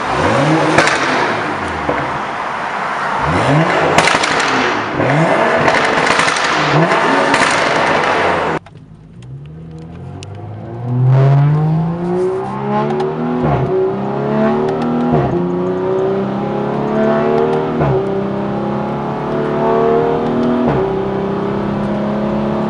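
Straight-piped BMW M235i's turbocharged N55 inline-six, running with no muffler or resonator, revving hard again and again with sharp pops and crackles. The sound cuts off abruptly about eight and a half seconds in, then the engine's rising revs start again and repeat, with cracks between them.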